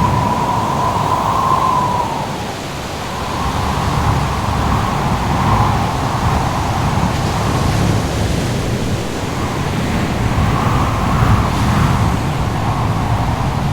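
Howling wind with a wavering whistle that swells and fades, over a steady low rush of surf.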